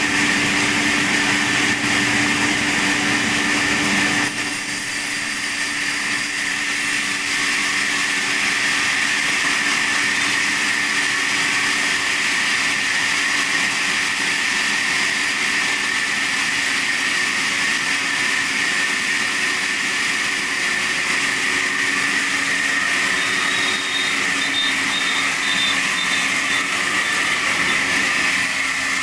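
Sawmill saw running steadily while sawing sheesham (Indian rosewood), a continuous machine noise with a steady hum, its lower tones dropping a little about four seconds in.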